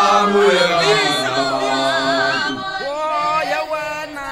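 A group of voices singing a traditional Zulu song (ingoma) together without instruments, several gliding voice lines at once.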